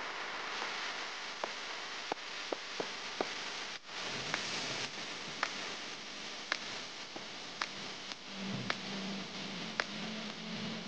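Steady static-like hiss with sharp ticks, scattered at first and then about one a second, with a low hum coming in about eight seconds in.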